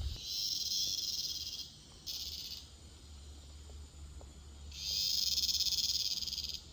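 Cicadas buzzing in high, finely pulsing bursts: three bouts of about a second and a half, half a second and two seconds, with the last the loudest, over a low steady hum.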